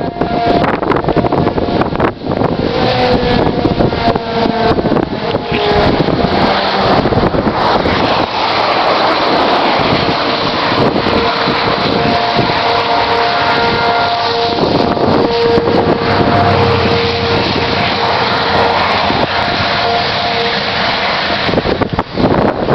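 Strong tornado wind blowing hard and steadily, buffeting the microphone, with a few steady high tones sounding over it that fade out near the end.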